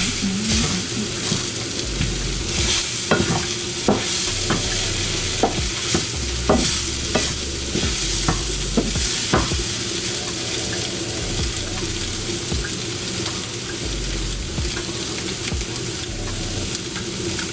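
Vegetable stir fry sizzling steadily in a pan while it is stirred with a wooden spoon, with irregular knocks and scrapes of the spoon against the pan, most frequent in the first half.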